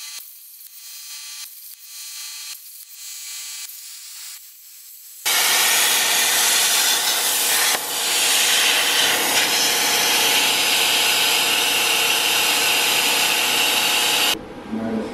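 CNC plasma cutting table working on a metal sheet: quieter mechanical whirring in short stop-start runs as the torch moves, then about five seconds in the plasma arc strikes and a loud steady hiss runs for about nine seconds, cutting off suddenly near the end.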